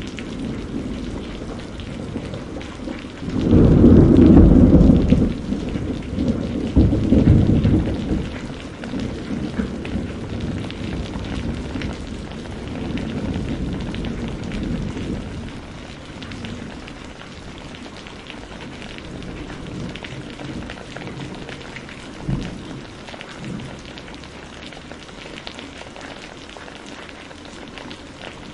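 Steady heavy rain with thunder: two loud low rumbles, about four and seven seconds in, roll away over the next several seconds, and a short sharp crack comes later.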